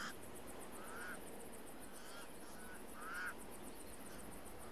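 Pied crows cawing: a few short, faint caws about a second apart, the loudest about three seconds in.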